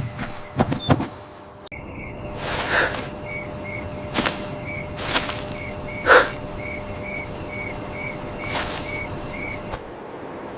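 Crickets chirping in an even rhythm, about two to three chirps a second over a high steady trill, starting about two seconds in. A few brief sharp sounds cut across the chirping.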